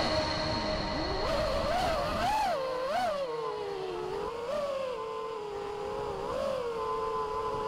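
FPV racing quadcopter's brushless motors and propellers whining as recorded on board. The pitch swells up and down quickly with the throttle, then settles into a steadier buzzing hum in the second half.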